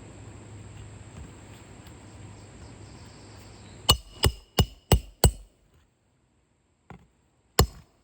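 A hammer driving a roofing nail: five quick, ringing strikes in a row, then after a pause a faint tap and one more hard strike.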